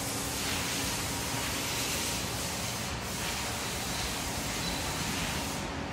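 Coolant spraying inside the enclosure of a 2012 Haas VF-4SS CNC vertical mill, a steady hiss of liquid against the door window. It breaks off briefly about three seconds in, then stops near the end.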